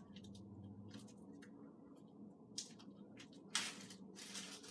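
Pet rabbit grooming its front paw on a towel: faint small wet clicks and soft scuffs of licking, with two louder brief scuffing noises near the end.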